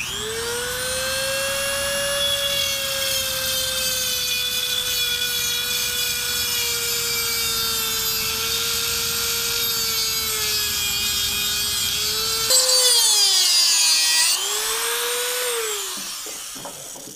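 Dremel rotary tool with an abrasive cutoff wheel grinding off the protruding coils of a steel helicoil thread insert in a cast-iron housing. The motor whines steadily at high speed after spinning up at the start. About thirteen seconds in the pitch dips under load and recovers, then near the end the tool winds down as it is switched off.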